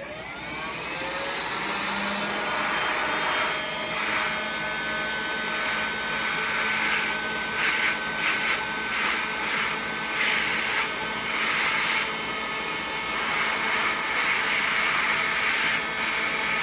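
Electric heat gun switched on, its fan spinning up over the first couple of seconds with a rising whine, then blowing steadily.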